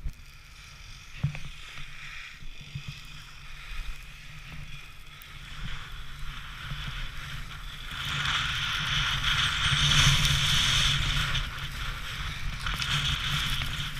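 Skis hissing and scraping over packed groomed snow during a downhill run, with wind rumbling on the microphone. The hiss swells and is loudest from about eight to eleven seconds in.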